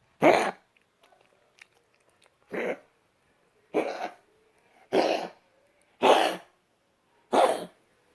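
A dog coughing six times in separate bouts about a second or so apart, the first one the loudest.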